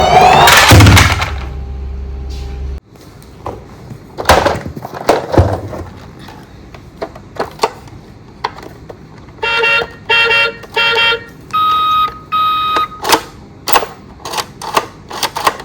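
Toy emergency vehicle's electronic sound effects: a loud siren wail rising in pitch at the start, with a low hum that cuts off about three seconds in. Then come scattered plastic clicks and knocks, three short electronic beeps past the middle and two higher steady tones after them.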